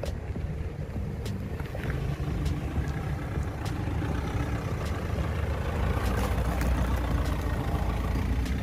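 Tata Safari's 2.0-litre Kryotec diesel engine running as the SUV drives slowly over a rough dirt track, growing louder as it comes close and passes, with tyres crunching and small stones clicking under them.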